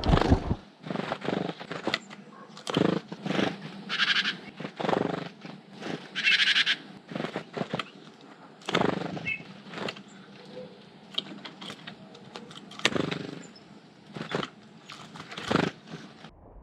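Small birds fluttering their wings in a run of short, irregular whirring bursts, a sound likened to a cat purring. Two brief, higher buzzing sounds come about four and six and a half seconds in.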